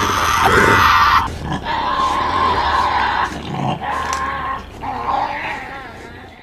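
Giant-lizard monster roar sound effect: one long roar that breaks into several shorter growls and fades out near the end.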